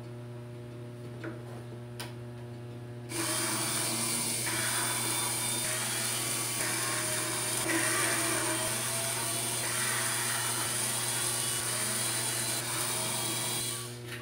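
Small cordless electric screwdriver running for about ten seconds, starting about three seconds in, backing out the wood screws that hold the tuning pegs to an acoustic guitar's headstock. Its whine wavers in pitch as the load changes.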